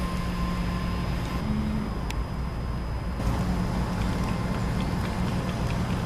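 Steady low rumble of motor vehicles, like road traffic, with a low engine hum.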